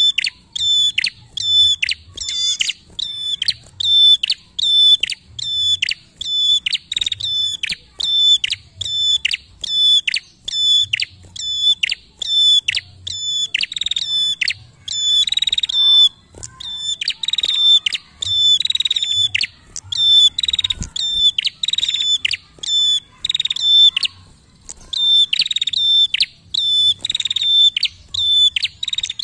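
Ashy tailorbird (prenjak) singing: a long, loud run of sharp, high, repeated notes, about two a second. A few buzzier notes come about halfway through, with brief pauses between bouts.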